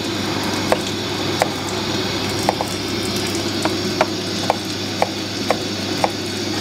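Knife cutting lemons on a plastic cutting board: about ten sharp, irregular taps as the blade strikes the board, over a steady background hiss and low hum.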